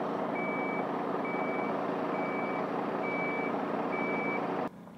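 A truck's reversing alarm beeping steadily, a single high tone about once a second, five beeps, over the steady hum of a running engine. The sound cuts off suddenly shortly before the end.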